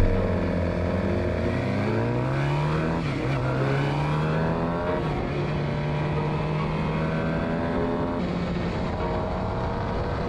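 Suzuki GSX-R sportbike's inline-four engine pulling away from a standstill and accelerating, heard from on board the bike. The engine note climbs in each gear and drops back at each of several upshifts, about every one and a half to three seconds.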